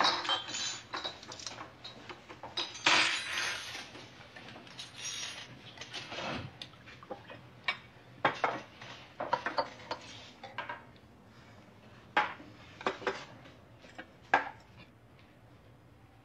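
Coffee cups, saucers and spoons clinking and clattering on a table in a run of short knocks and clinks, busiest and loudest in the first few seconds.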